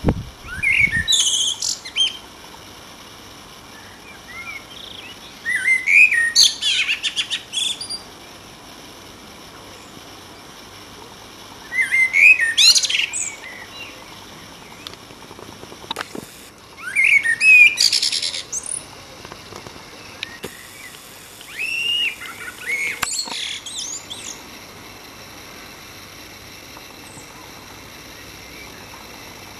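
Common blackbird singing: five separate phrases a few seconds apart, each a low fluty warble that breaks into higher, squeakier twittering, with trills and runs.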